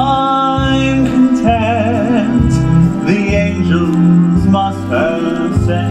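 Musical-theatre music: a sung melody with vibrato over an accompaniment with a bass line that moves about once a second.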